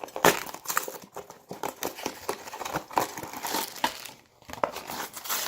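Clear plastic wrapping crinkling and crackling in irregular bursts as it is pulled off a small cardboard blind box, with a short lull about four seconds in.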